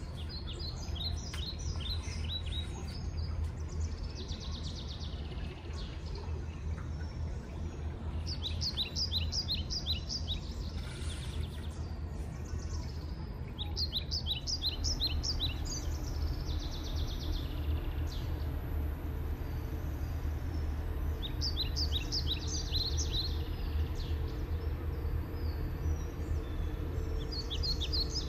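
A small bird calls in quick runs of short, high chirps that recur every few seconds, over a steady low rumble of outdoor background noise.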